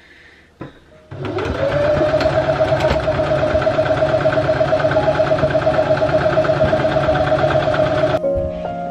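Electric domestic sewing machine stitching a seam: the motor spins up about a second in, then runs at a steady fast speed with a rapid, even stitching rhythm, and stops near the end.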